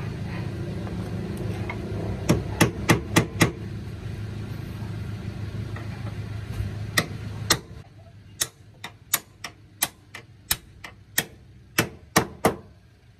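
Hammer blows driving a greased hinge pin into the lower door hinge of a Nissan Urvan, seating it through a new hinge bushing: a quick run of five sharp strikes, two more, then a steady series of about a dozen strikes, roughly three a second. An engine hums in the background until about halfway, then stops.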